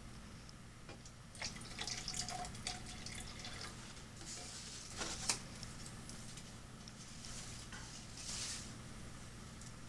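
Water being poured onto pepper plants: dripping and splashing in short, scattered bursts with small clicks, over a faint steady hum.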